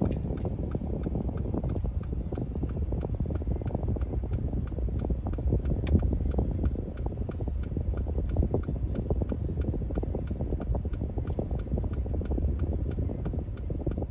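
Inside the cabin of a 2013 Mercedes-Benz A180: the engine running with a steady low rumble and fan noise, over an even ticking about three times a second.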